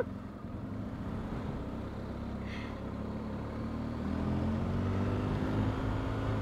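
BMW R1250 GS Adventure's boxer-twin engine running at low speed, rising in pitch about four seconds in as the motorcycle picks up speed.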